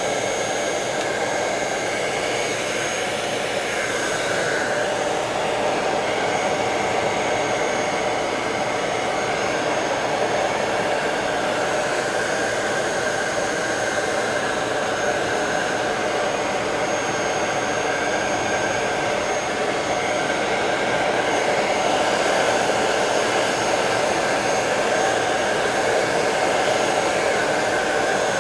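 Handheld 1000-watt hot-air blower running steadily, a constant fan rush with a faint high whine, blowing hot air onto bedding-compound resin to warm and thin it for mixing with the hardener.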